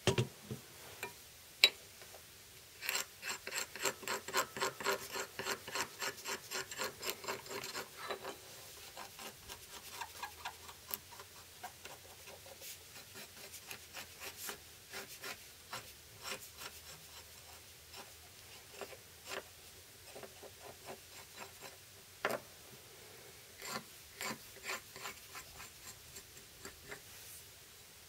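Hand scraping and rubbing at a small steel folding knife blade: a fast run of short strokes, about four a second, for some five seconds, then scattered scratches and clicks, with another brief flurry near the end.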